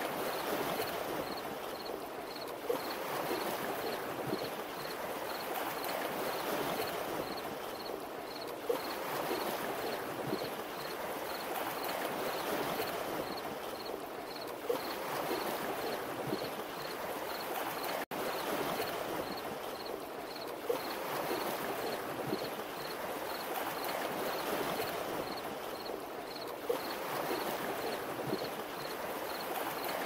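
Mountain river water flowing with a steady rushing babble. The same swell comes back about every six seconds, each with a small click, and the sound cuts out for an instant about eighteen seconds in.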